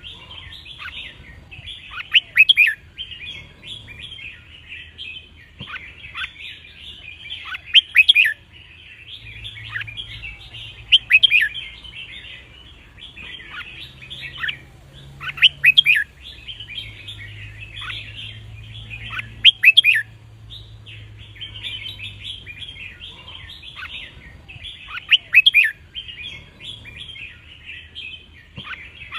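Red-whiskered bulbuls singing: continuous chattering with loud, clear song phrases breaking out every three to six seconds.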